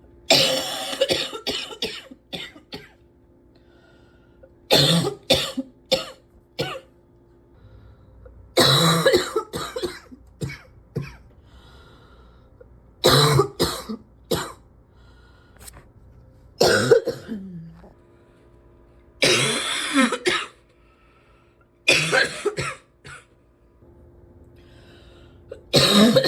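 A person coughing in repeated fits, about eight of them, every three to four seconds. Each fit is one loud cough followed by a few smaller ones. It is a persistent cough that the person wishes they could stop.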